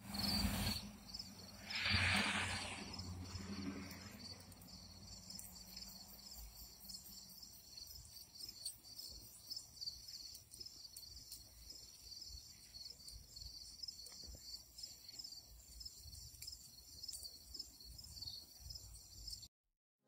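Crickets chirping steadily, a high pulsing trill that carries on throughout. Two brief louder rushes of noise come near the start and about two seconds in.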